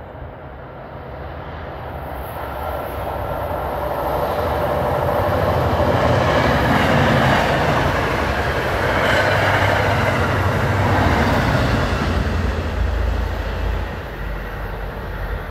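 Inbound passenger train approaching and passing on the main line: the rumble of wheels on rail builds over several seconds, stays loudest for about six seconds, then begins to fade.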